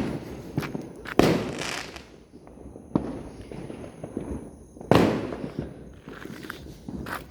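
Fireworks exploding: two loud bangs, about a second in and near five seconds, each trailing off in a long echoing decay, with a few smaller pops between.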